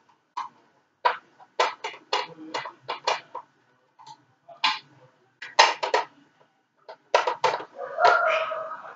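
Sharp plastic clicks and rattles from foam Nerf darts being pushed into a plastic Nerf dart clip by hand. The clicks come in irregular little clusters of several at a time, with short pauses between them.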